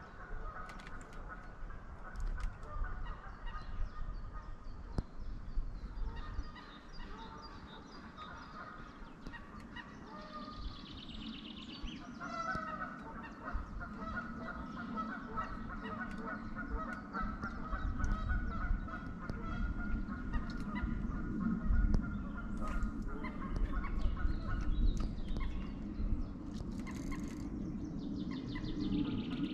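Geese honking, short calls repeating again and again, over a low rumble that grows louder in the second half.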